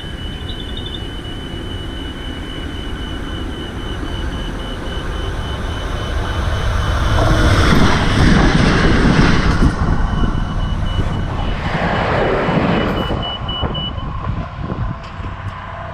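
Australind diesel railcar train passing close by. Its rumble builds to loudest as the carriages go past about eight seconds in, then fades. A fast-pulsing high tone sounds alongside until shortly before the end.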